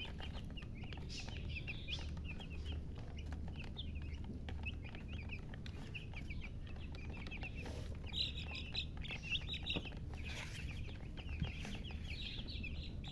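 Baby chicks peeping: a constant run of short, high chirps from several chicks at once, over a low steady hum.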